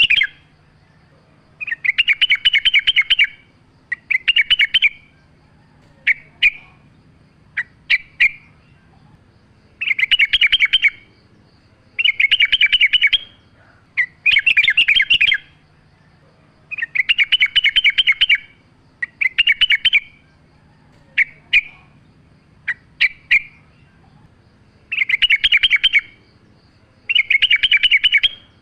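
Trucukan (yellow-vented bulbul) singing: rapid, trilled chattering phrases about a second long, repeated roughly every two seconds, with short single chirps in between.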